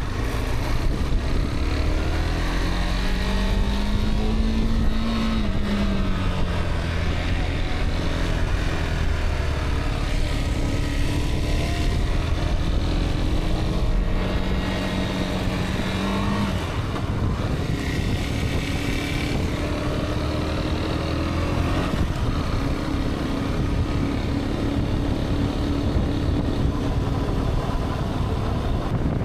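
Motorcycle engine running while riding, with heavy wind rumble on the microphone; the engine note rises and falls several times with the throttle.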